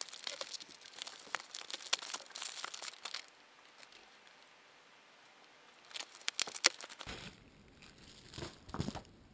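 Packaging crinkling and tearing by hand as a packet is ripped open, for about three seconds. After a quiet pause, a plastic bag crinkles briefly, followed by a few softer rustles near the end.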